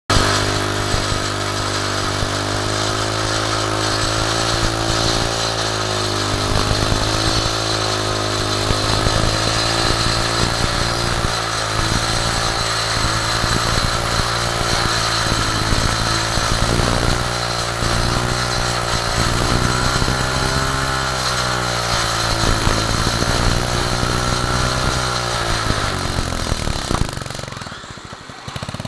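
An engine running steadily at a fairly constant speed, its pitch wavering slightly, until it dies away near the end.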